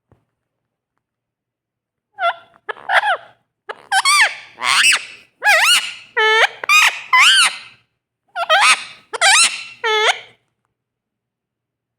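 Pet parrot calling: about a dozen short, high, chattering calls that swoop up and down in pitch, in three bursts starting about two seconds in and stopping about ten seconds in.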